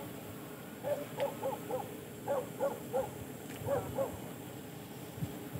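An animal calling in short, pitched calls that come in runs of three or four, about three calls a second, repeated three times over a steady background hiss.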